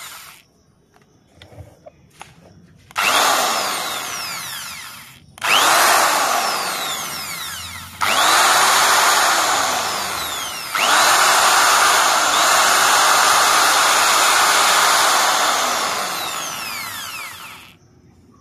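A 350 W corded electric drill's brushed motor run four times on its trigger, spinning up quickly each time and running for about two to seven seconds before winding down, with a few small clicks in the pause before the first run. The drill runs only when the switch is pressed, its switch wiring repaired after a fault that made it run as soon as power was connected.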